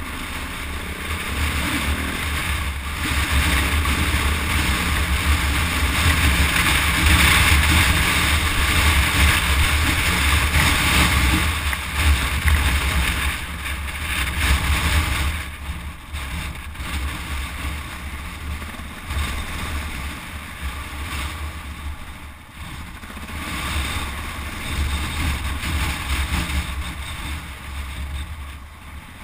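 KTM 400 EXC single-cylinder four-stroke enduro motorcycle running along a rough dirt lane, with wind rushing over the microphone. The engine pulls harder through the first half and eases off in the second half.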